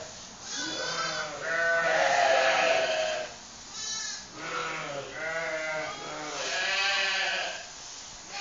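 A flock of ewes and lambs bleating, many calls one after another and overlapping, some short and some drawn out.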